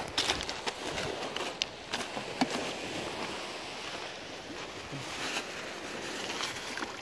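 Footsteps crunching on loose pebbles for the first couple of seconds, then a steady rushing hiss of outdoor background noise.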